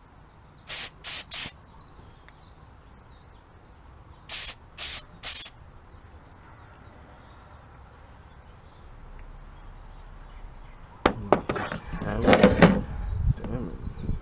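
Aerosol spray can with a thin straw giving six short hisses in two sets of three, blowing through a blocked carburettor pilot jet. Near the end, a louder clatter of clicks and knocks.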